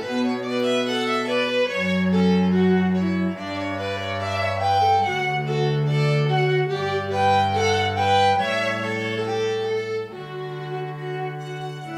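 A string trio, two violin-family instruments and a cello, playing sustained bowed chords that change together about every second or two, with the cello holding the low notes.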